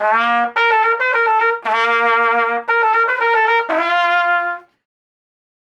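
A trumpet-like brass horn playing a short run of about eight notes as a comic snore, ending on a lower held note.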